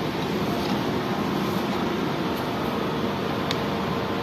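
Steady fan-like background noise, with one faint metallic click about three and a half seconds in as a steel shaft is fitted by hand into its mount on the machine's steel top plate.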